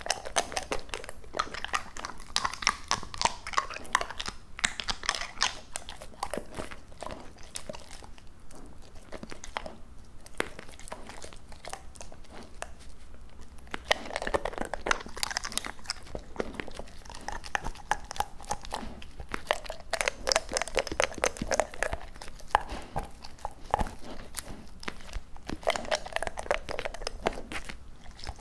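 Labrador retriever chewing and licking raw duck, close to the microphone: wet mouth sounds and sharp crunching bites in bursts, with a quieter lull about a third of the way in.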